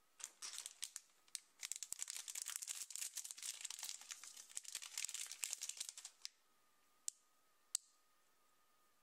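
A blind-bag packet crinkling and tearing as it is opened by hand: a dense run of crackles lasting about six seconds, then two short sharp clicks.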